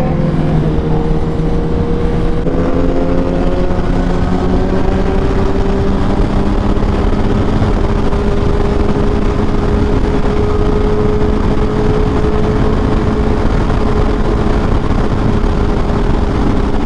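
Honda CBR1000RR SP's inline-four engine running under way, its pitch climbing slowly as the bike gathers speed, over heavy wind and road rush.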